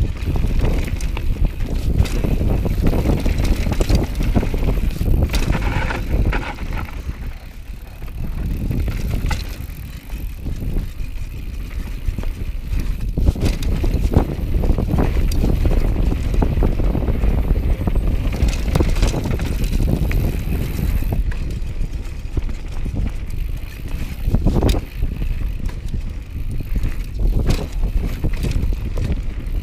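Downhill mountain bike descending a loose gravel and stone singletrack: tyres rumbling and crunching over the trail, with scattered knocks and rattles from the bike over bumps, and wind buffeting the camera microphone.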